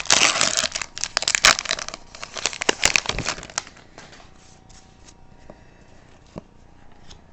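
Foil wrapper of a hockey card pack crinkling and tearing as it is opened, dense for about three and a half seconds, then fading to a few faint handling clicks.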